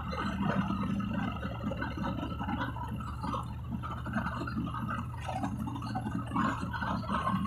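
City bus engine running with a steady low hum, heard from inside the passenger cabin, under an uneven hiss of road and traffic noise.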